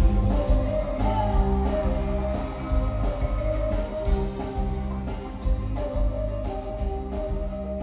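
Music with guitar and a strong bass line, gradually getting quieter.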